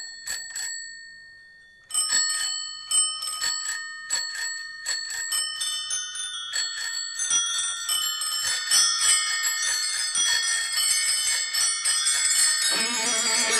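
Many bicycle bells ringing as part of a rock song's bell interlude: a few rings, a short pause, then more and more bells overlapping into a dense jangle. Near the end, band music with guitar comes in.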